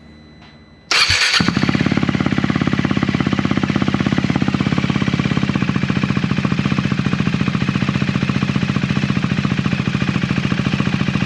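A 2020 KTM RC390's single-cylinder engine is started on the electric starter and catches about a second in, on its first start through a new Austin Racing slip-on exhaust. It then idles with a steady, even pulse.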